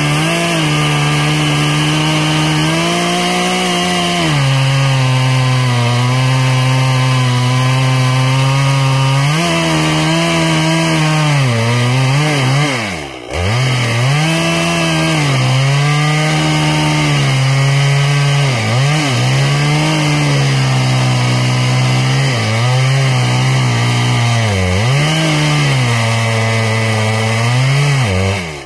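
Husqvarna 395 XP, a big 94 cc two-stroke chainsaw, running at full throttle as it cuts into a thick tree trunk. Its pitch sags under load and recovers again and again, dives sharply once about thirteen seconds in, and the sound drops away abruptly at the end.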